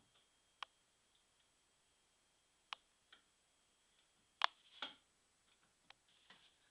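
Near silence broken by about seven sharp, irregularly spaced clicks and knocks, the loudest two close together about four and a half seconds in.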